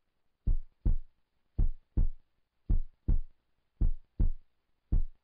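Heartbeat sound effect: low double thumps in a lub-dub pattern, about five beats a little over a second apart.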